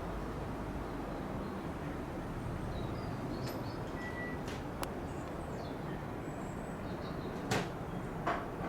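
Steady low rumbling background noise with faint bird chirps, broken by a few sharp clicks, the loudest two near the end.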